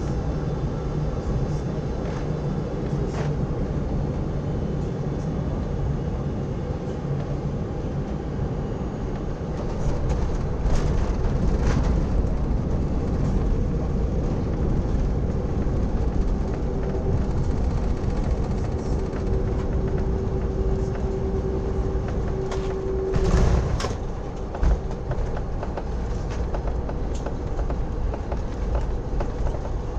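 Cabin noise inside a Boeing 747-400 landing: the steady rumble of engines and airflow on final approach. About ten seconds in, the plane touches down, and the rumble grows louder with clattering and knocks from the wheels rolling on the runway. Partway through the rollout a steady whine comes in; it stops with a loud jolt a little after twenty seconds.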